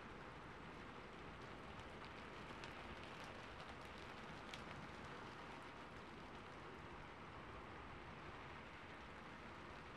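Faint, steady rain, with a few light drop ticks between about two and a half and four and a half seconds in.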